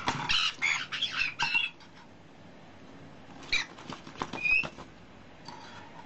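White-bellied caiques giving short, scratchy squawks and chirps in two bursts, one over the first second and a half and another around four seconds in, mixed with sharp clicks.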